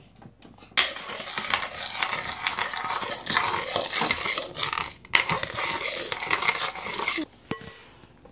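A spoon stirring raw popcorn kernels around a metal rice-cooker inner pot: a busy rattling scrape of kernels and spoon against the pot. It breaks off briefly about five seconds in and stops about seven seconds in.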